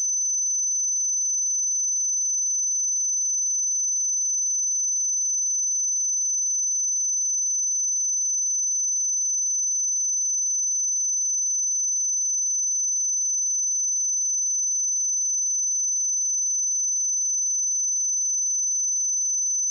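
A pure 6081 Hz sine-wave test tone: a single high, steady pitch that does not change.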